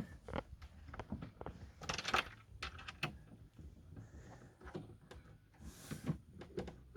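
Scattered light knocks and clicks with a couple of brief scraping rubs as camping box modules are handled and lined up.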